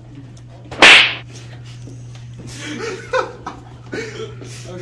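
Teenage boys laughing: a loud, sharp outburst about a second in, then softer chuckling.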